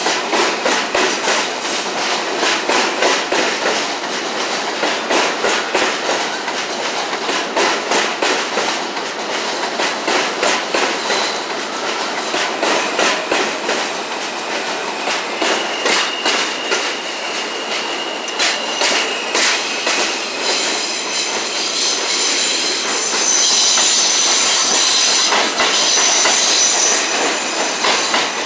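Q train of R160 subway cars running by on an elevated steel structure, its wheels clicking in a steady rhythm over the rail joints. About halfway through, a thin high wheel squeal comes in, and near the end the squeal grows louder and higher as the cars take the curve.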